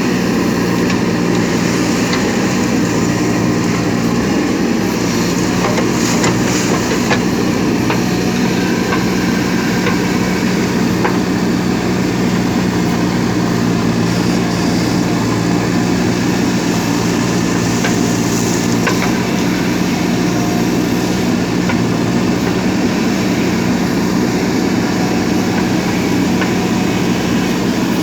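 Diesel engine of a JCB 3DX backhoe loader running at a steady speed while the machine works, with a few light knocks.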